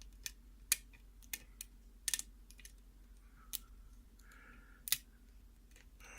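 Irregular, sharp metallic clicks of a hook pick and tension wrench working the spool pins inside a mortise lock cylinder, with a brief soft scraping twice in the middle.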